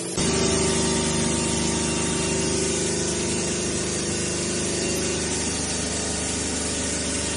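CNC stone bridge saw running, its water coolant spraying: a steady hiss over a low motor hum that starts abruptly just after the start and cuts off near the end.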